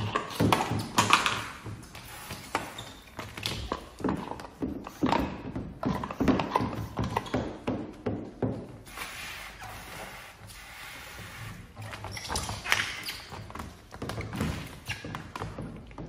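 Irregular taps, knocks and rubbing from hands and a squeegee working wet paint protection film onto a car's bonnet and bumper. Longer stretches of rubbing come about nine and twelve seconds in.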